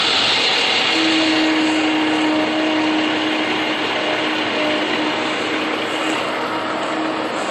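International rolloff truck's turbocharged diesel engine running hard while its rear tandem wheels spin in the soft pasture, stuck. A steady high turbo whistle sounds over the engine and fades out about five seconds in.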